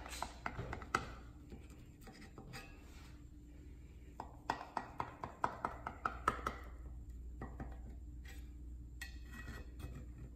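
A kitchen knife cutting through baked cornbread in a cast iron skillet, its blade tapping and scraping on the pan's bottom. Scattered sharp clicks, with a quick run of them near the middle.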